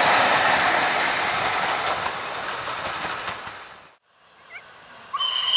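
Steam-hauled passenger coaches rolling past on the rails, their noise fading as the train draws away and cutting off about four seconds in. About a second later a steam locomotive whistle starts, a steady high tone.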